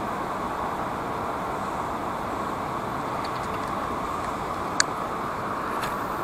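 Steady rushing outdoor background noise, with a few faint ticks and one sharp click nearly five seconds in as a spinning rod and reel are handled.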